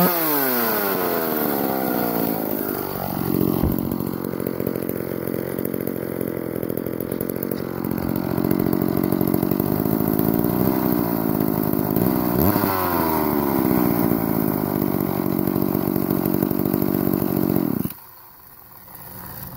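1970s McCulloch Power Mac 6 two-stroke chainsaw running, its engine revved and let back down a few times, with the pitch falling, rising and settling, then holding steady. The engine cuts off suddenly near the end.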